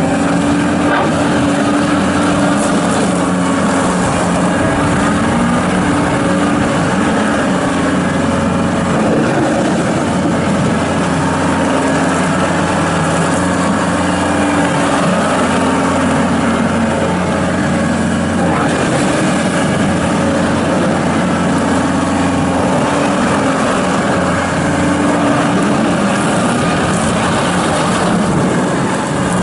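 John Deere 331G rubber-track skid steer loader's diesel engine running steadily, its pitch shifting a little up and down as the machine is worked.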